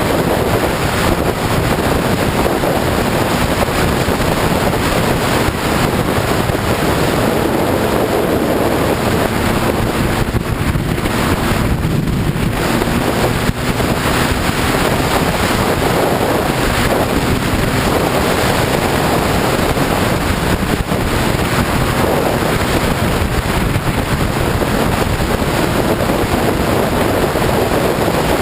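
Heavy wind buffeting on the microphone of a sport motorcycle riding at speed, with the engine's steady drone underneath.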